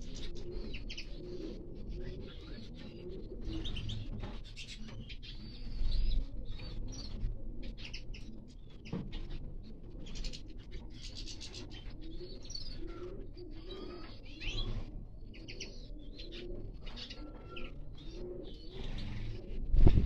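Aviary birds calling: small finches chirping and twittering in quick high notes, over a repeated lower warbling call. A dull low thump about six seconds in, and a louder one near the end.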